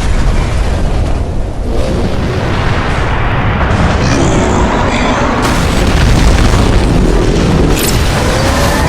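Loud, continuous low rumbling with booms like explosions, layered over music.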